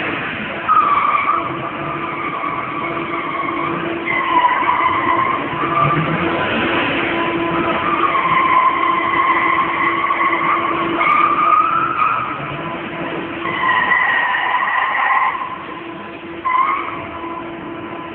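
BMW sedan's rear tyres squealing on a smooth concrete garage floor as the car drifts in circles: a series of about six long squeals, each wavering slightly in pitch, with short breaks between them.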